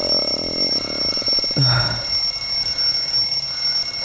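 Alarm ringing: a steady, unbroken high electronic tone that keeps going. Over it, in the first second and a half, a person makes a drawn-out, juddering vocal sound.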